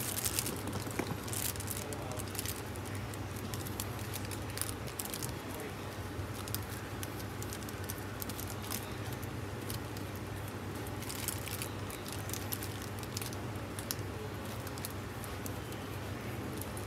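Soft rubbing and crinkling as a thin plastic-gloved hand wipes a pad soaked in liquid green polishing compound across the smooth face of a leather strop, with scattered small clicks and scratches. A steady low hum runs underneath.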